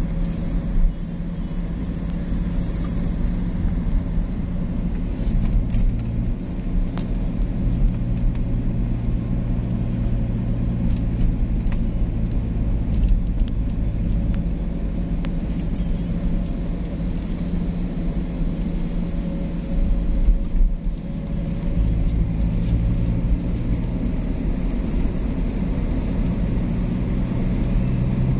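Car driving at highway speed, heard from inside the cabin: a steady low rumble of tyres on the road and the engine's hum.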